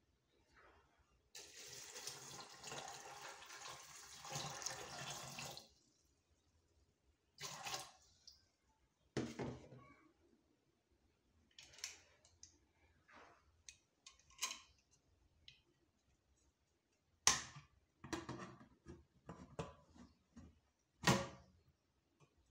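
Water poured from a plastic measuring jug into an aluminium pressure cooker holding beans, a steady pour of about four seconds with a short splash a little later. Then a series of sharp knocks and clatters as the pressure cooker's metal lid is handled and fitted onto the pot, two of them louder than the rest.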